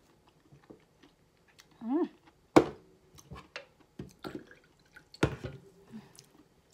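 Drink poured from an aluminium can into a small glass, with light dripping and small handling clicks. Two sharp knocks on the table, the loudest about two and a half seconds in and another a little past five seconds. A short hum about two seconds in.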